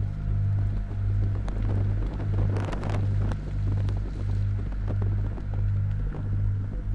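Experimental noise music: a low distorted drone from electric guitar and contact microphones through a Boss Metal Zone distortion pedal, throbbing about three times every two seconds. Scattered crackles run over it, with a short burst of hiss about two and a half seconds in.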